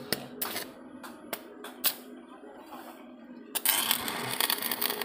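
Stick (arc) welding on steel gate strips: a few sharp snaps as the electrode strikes and tacks in the first two seconds, then the arc crackles steadily from about three and a half seconds in.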